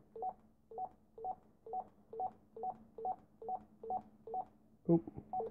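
Baofeng UV-5RE Plus handheld radio's key beep, sounding with each press of a button while the settings menu is scrolled: about a dozen short, even beeps, about two a second, followed near the end by a brief louder sound.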